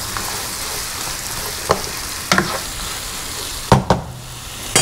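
Onions sizzling steadily in hot oil and butter in a frying pan, with a few knocks and scrapes of a utensil stirring them against the pan, the loudest about three-quarters of the way in.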